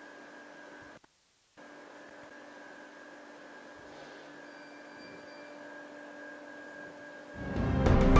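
Laser cutting machine running as it cuts plywood: a faint steady hum, with a short gap of silence about a second in. Music fades in near the end and grows loud.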